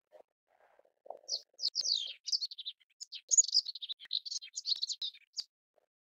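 Melodious warbler singing: one quick, unbroken run of high, varied notes that starts about a second in and lasts about four seconds.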